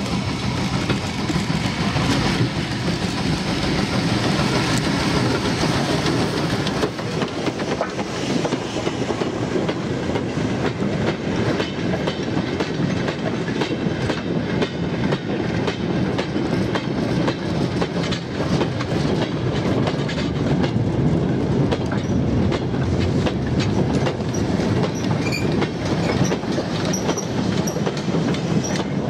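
LMS Stanier Class 8F steam locomotive hauling a freight train past, loudest in the first several seconds as the engine goes by. A long rake of goods wagons follows, their wheels clattering rhythmically over the rail joints, with the brake van passing at the end.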